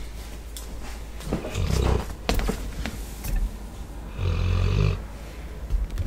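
American Staffordshire Terrier/pit bull snoring in its sleep: a low snore about a second and a half in and a longer one just past four seconds, with a few sharp clicks in between.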